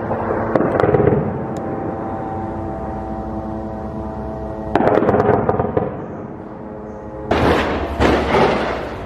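Crackling explosive blasts of rocket-propelled grenade fire, three in all: a short one just under a second in, another about five seconds in, and the loudest from about seven seconds on. A steady background music drone runs underneath.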